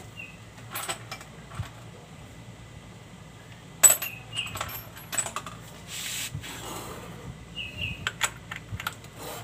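Hand tools clinking and rattling as a socket is picked out and handled: scattered sharp metal clicks, the loudest about four seconds in.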